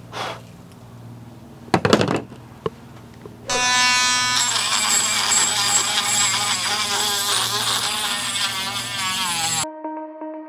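A few short scrapes of a steel scraper on the rusty axe head, the loudest about two seconds in. Then, from about three and a half seconds, a handheld rotary tool runs at high speed with a steady high whine, its sanding drum grinding inside the axe eye. The whine cuts off suddenly near the end, and soft music begins.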